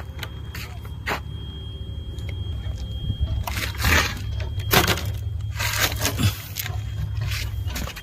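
A road roller's diesel engine running with a steady low rumble. Over it come several loud scraping, crinkling noises close to the microphone around the middle, as a plastic water bottle is handled and set down on the dirt.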